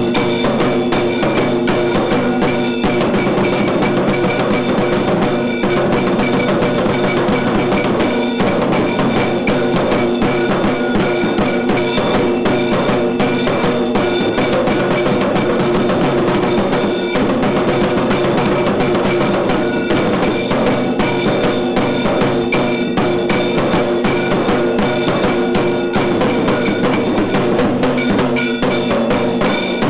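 Kailaya vadyam temple percussion ensemble playing: fast, dense, unbroken drumming with steady sustained tones held underneath.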